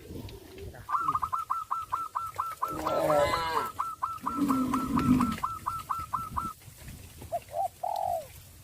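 A bird calling a fast run of short repeated notes, about four a second, for several seconds, with lower farm-animal calls mixed in midway and a few short calls near the end.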